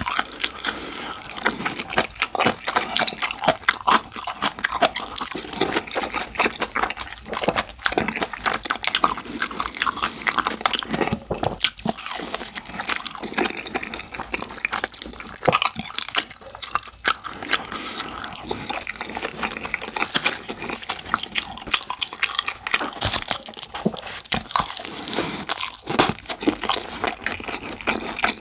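Close-miked eating of saucy rice with curry and black bean sauce: steady wet chewing with dense small mouth clicks.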